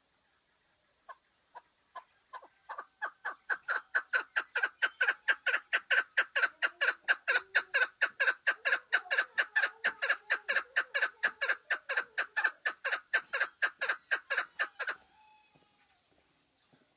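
Lal keklik (chukar partridge) calling: a long run of repeated short 'chuk' notes, a few spaced ones at first, then quickly speeding up to about four a second and growing louder, before stopping abruptly about fifteen seconds in.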